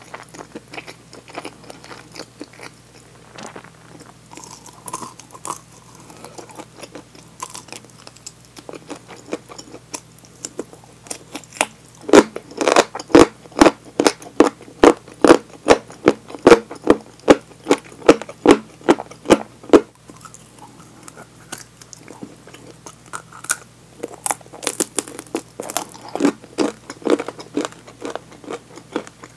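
Close-miked chewing of crispy deep-fried chicken drumstick, the coating crunching between the teeth. Soft at first, then a long, even run of loud crunchy chews at about two to three a second through the middle, easing off to softer crunching near the end.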